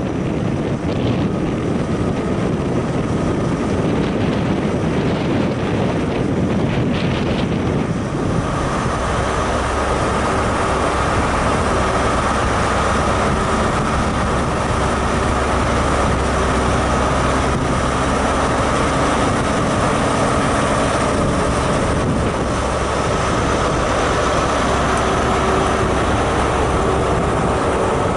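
Diesel InterCity 125 (HST) trains at a station. First a rushing noise as a power car moves past, with wind on the microphone; from about eight seconds a leading HST power car's diesel engine drones steadily under power with a steady whine over it as the train pulls out and its coaches roll by.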